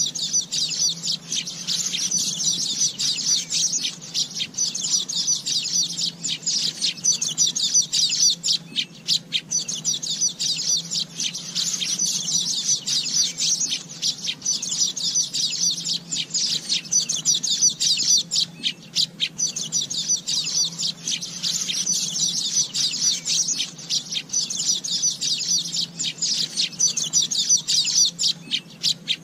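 Asian golden weaver song: a dense, continuous chatter of rapid, high chirps and buzzy notes.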